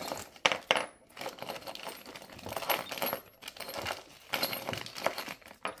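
Small metal hardware, lag screws and washers from a strap kit, clinking and rattling as it is handled: a string of irregular light metallic clicks.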